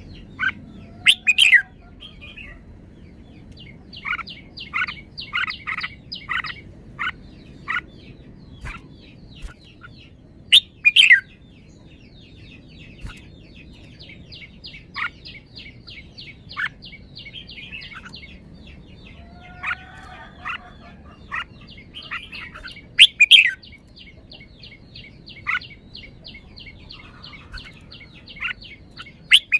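Red-whiskered bulbul singing short, bright whistled phrases at intervals, the loudest about a second in, near eleven seconds and near twenty-three seconds. From about four seconds in, a fast, even ticking trill runs behind the song.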